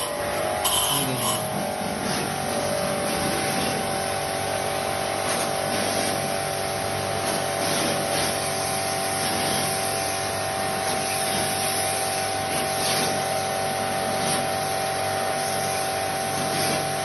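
Electric pressure-washer pump motor starting up and then running steadily with a constant hum, under a wide hiss of water spray as the window air conditioner is washed.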